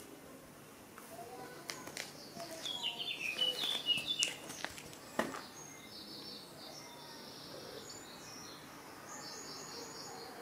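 Small birds chirping in short repeated high notes. In the first half there is a run of sharp clicks from a cat crunching dry kibble.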